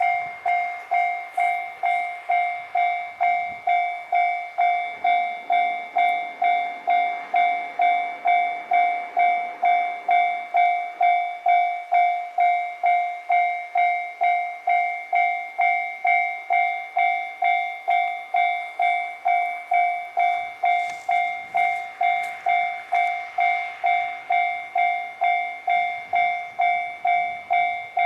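Japanese railway level-crossing warning bell ringing: an electronic ding repeating evenly about twice a second, signalling that a train is approaching and the crossing is closed.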